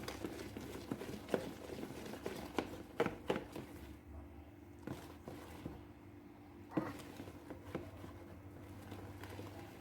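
Batter being stirred by hand in a mixing bowl: a few scattered clicks and taps of the utensil against the bowl over a faint steady hum.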